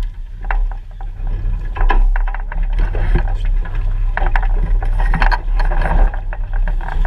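Clicks, knocks and rattles from a Mirror dinghy's fittings and rigging as the crew shift about and handle lines, over a steady low hum.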